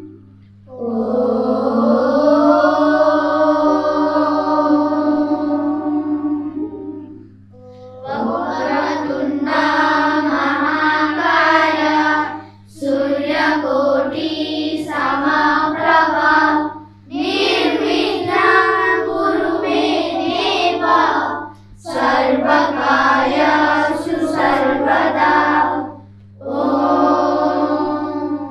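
A group of children singing a Hindu devotional bhajan in phrases: a long held first phrase, then several shorter phrases with brief breaks between them, over a steady low hum.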